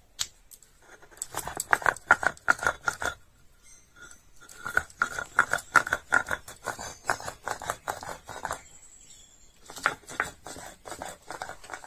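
Stone roller of a shil-nora (Bengali grinding stone) rocked and rubbed over the grooved slab, crushing garlic cloves and ginger into paste: scraping, crunching strokes at about four a second, in three runs with short pauses between them.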